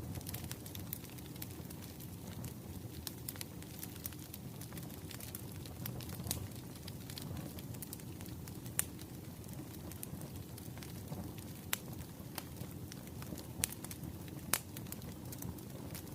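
Wood fire burning: irregular sharp crackles and pops over a low steady rumble, with a few louder pops in the second half.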